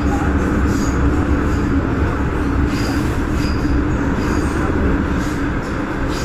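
MTR M-train electric multiple unit heard from inside the car as it runs out of an underground station into the tunnel: a steady rumble of wheels on rail and traction equipment, with a low steady hum.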